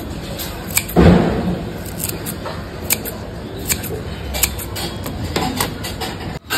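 Kitchen scissors snipping fresh coriander into a glass bowl: a series of sharp snips, about one or two a second, with a duller thump about a second in.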